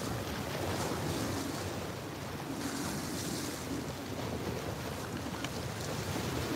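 Small waves washing over rocks at the water's edge, a steady surf hiss that swells about halfway through, with wind buffeting the microphone.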